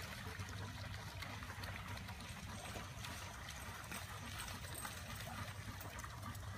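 Faint splashing of dogs wading through shallow floodwater, over a steady low hum.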